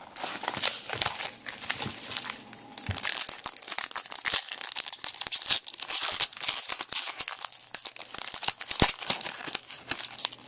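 Trading card pack wrappers being torn open and crinkled by hand, a dense run of irregular crackles and rustles, with cards shuffled between them.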